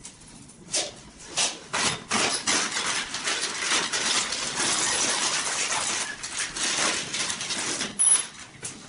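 A toilet fixing kit being unpacked by hand: a few separate clicks, then several seconds of dense rattling and rustling, with a sharp clink near the end as small metal screws and plastic wall plugs land on the ceramic tile floor.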